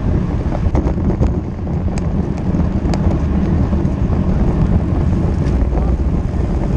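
Wind rushing over the microphone while riding a road bike at speed, with a few faint ticks about one to three seconds in.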